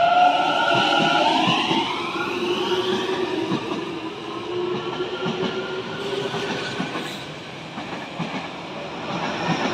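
Tobu 50000-series electric train pulling away along the platform. The motor whine rises in pitch over the first few seconds as it gathers speed, then the wheels clack steadily over the rail joints, and a high squeal comes in near the end.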